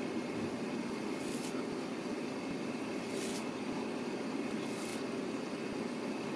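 Steady low background noise, with three brief high swishes about a second and a half apart as the tinsel streamers of a cat wand toy are whipped through the air.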